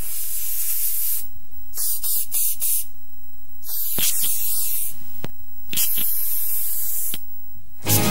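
Aerosol spray-paint can hissing in bursts: a long spray, a run of short puffs, then two more long sprays, with a few faint clicks in the gaps.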